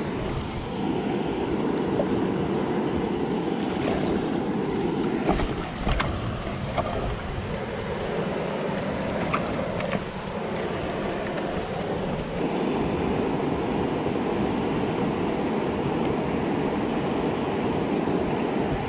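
Steady rush of water pouring out of a concrete dam spillway, with some wind on the microphone. A few light clicks come in between about four and ten seconds in.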